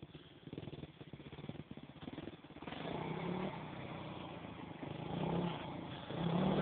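Motocross motorcycle engine approaching. It is faint at first, gets louder from about three seconds in, and revs up slightly in pitch near the end as it comes closer.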